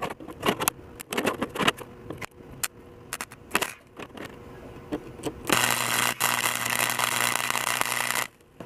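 Steel rods clinking and knocking on a steel table as they are set in place. About five and a half seconds in, a flux-core MIG welder's arc crackles steadily over a hum for about three seconds as it lays a tack weld, then cuts off.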